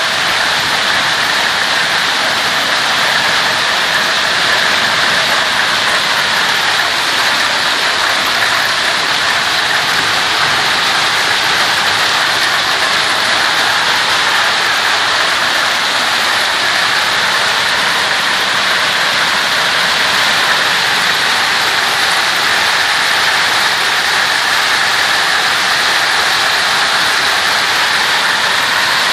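Heavy hailstorm: hail mixed with rain pelting down in a loud, steady, dense hiss of countless small impacts.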